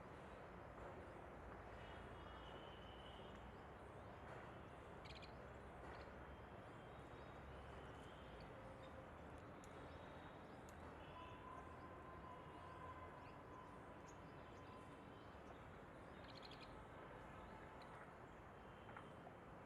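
Quiet outdoor background with scattered faint, short bird chirps, and a faint steady tone held for a few seconds midway.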